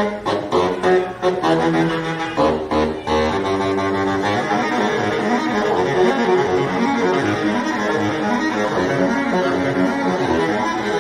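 Homemade horn made from a traffic cone on a long tube, blown to give loud brassy notes: choppy and broken for about the first four seconds, then one continuous held sound.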